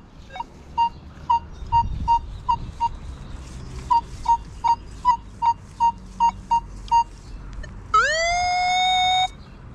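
Nokta Makro Legend metal detector sounding a target: near the end a loud tone glides up quickly and then holds for over a second, the same signal the wheat penny dug just beside it gave. Before it, a string of short, evenly spaced beeps, about two a second.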